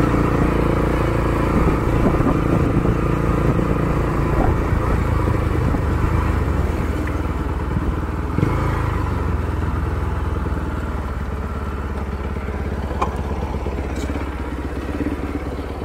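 Bajaj Pulsar NS200's single-cylinder engine running steadily through a custom-made aftermarket exhaust, a deep, bassy note.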